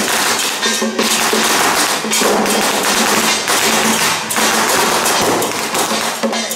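Loud temple-procession music of drums and crashing cymbals, a dense run of sharp strokes over a steady low tone.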